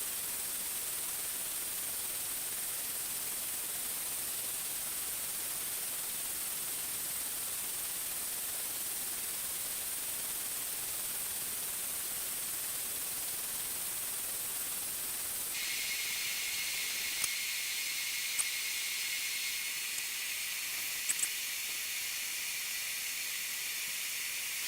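Welding arc hissing steadily as metal is deposited layer by layer, with a thin high tone over the hiss. About fifteen seconds in the hiss turns brighter, and a few faint clicks follow.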